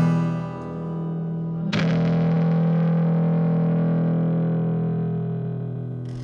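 Closing chords of a song on distorted electric guitar: one chord rings on, another is struck just under two seconds in and slowly fades away.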